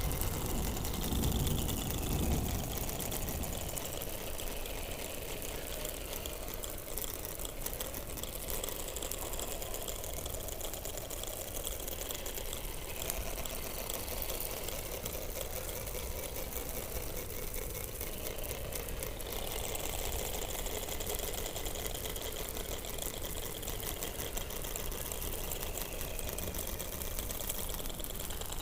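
Underwater sound from below the Antarctic ice: a continuous crackle of fine clicks with series of high, descending whistle-like calls repeating one after another. A low rumble sits under the first couple of seconds.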